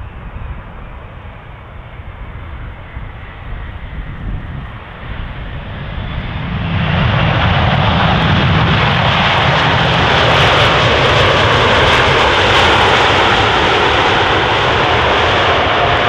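Airbus A380 jet engines during landing: a low rumble as the airliner touches down, then about six and a half seconds in the noise jumps to a loud, steady rush as reverse thrust is applied on the rollout.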